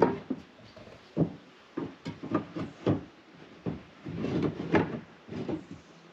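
Reclaimed roof tiles knocking and clinking as they are handled and set into place: about a dozen irregular sharp knocks, with a longer scraping sound just after four seconds in.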